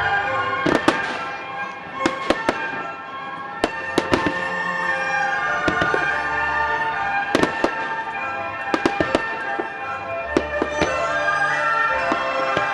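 Fireworks display set to music: sharp bangs from bursting shells come in quick clusters of two or three every second or two, over a continuous musical soundtrack.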